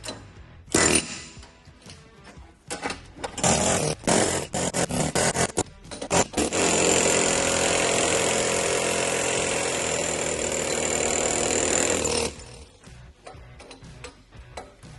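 Pneumatic air hammer driving out a worn bushing in a dozer ripper box: short stop-start bursts, then a continuous run of about six seconds that cuts off abruptly.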